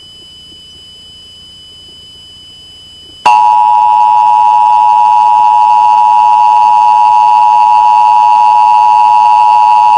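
Emergency Alert System attention signal: a loud, steady two-tone alert tone that starts abruptly about three seconds in and holds. Before it, only a faint, steady high-pitched whine.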